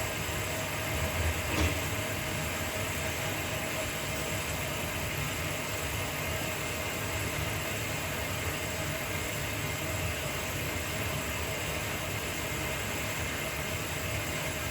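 A connecting-rod honing machine running steadily while a rod's small-end pin bore is honed, a constant mechanical rumble with a faint rhythmic clatter. A single short knock comes about a second and a half in.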